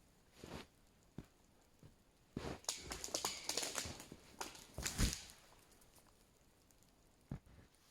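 Rustling and crackling of brush and sticks with scattered knocks. A louder stretch of rustling starts about two and a half seconds in and lasts nearly three seconds, ending in a heavy thump.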